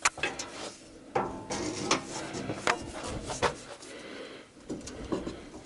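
Irregular metallic clinks and knocks as the car's metal engine sump guard and its mounting shackle are shoved and worked loose by hand.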